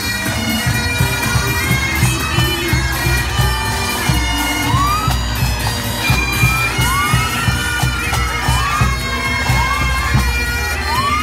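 A pipe band's Great Highland bagpipes playing a tune over their steady drones, with the band's drums beating a regular rhythm underneath.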